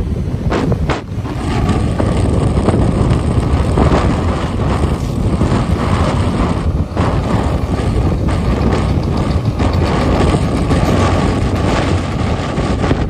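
Steady road noise from a moving vehicle: engine and tyre rumble mixed with wind buffeting the microphone, with a faint steady whine that comes in about a second in.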